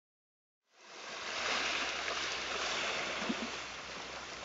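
A steady rushing noise of flowing water fades in from silence about a second in.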